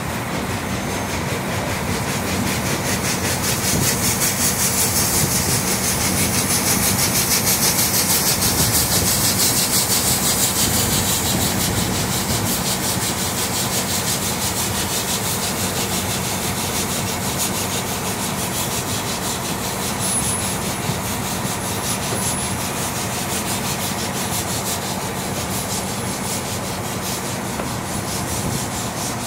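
Mount Washington Cog Railway steam locomotive pulling away, a rapid, even rasping chuff with a hiss of escaping steam that is loudest in the first ten seconds or so, then eases off as it moves away.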